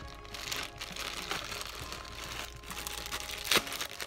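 Clear plastic bag crinkling as it is handled and opened by hand, with a sharper crackle about three and a half seconds in.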